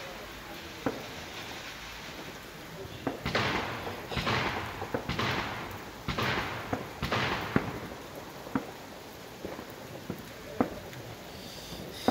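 Fireworks going off: sharp bangs scattered through, and a run of five hissing, crackling bursts about a second apart in the middle.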